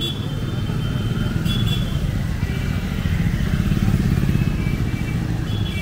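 Street traffic with motorcycles on a wet road: a steady low engine rumble that swells around the middle, with faint thin high tones over it.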